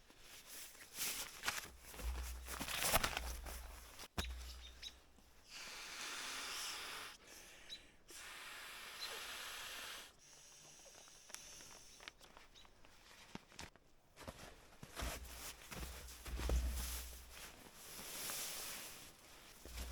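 Rustling and shuffling of camping gear being handled, with a few knocks, two stretches of steady hiss partway through, and wind rumbling on the microphone at times.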